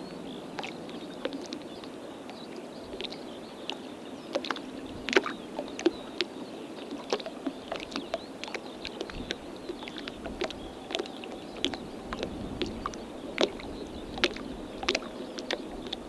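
Small ripples lapping at the edge of calm, shallow water: irregular light plinks and splashes over a steady soft wash.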